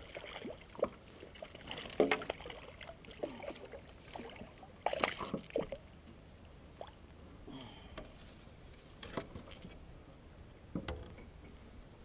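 Water splashing and sloshing beside a kayak as a hooked bass thrashes at the surface, with scattered short knocks and rattles; the loudest come about two and five seconds in.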